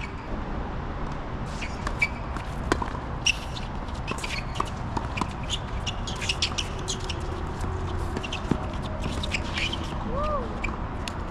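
Tennis court sounds: scattered sharp knocks of tennis balls being hit and bounced, with shuffling steps, and a short rising-and-falling chirp near the end.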